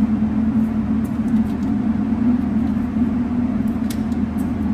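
Steady low mechanical hum of running machinery, with a few faint light clicks.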